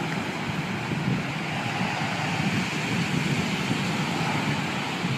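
Steady wash of small surf breaking on a sandy beach, with wind buffeting the microphone.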